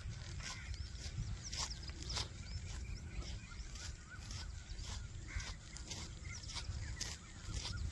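Footsteps of a person walking at a steady pace, about one step a second, over a low rumble of wind and handling on the microphone, with scattered bird calls around them.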